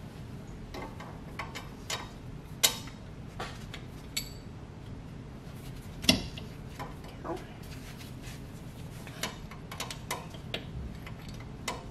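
Small wrench clinking and ticking against the brake-line nuts on a master cylinder as they are loosened: scattered light metallic clicks, the loudest about two and a half and six seconds in, over a steady low hum.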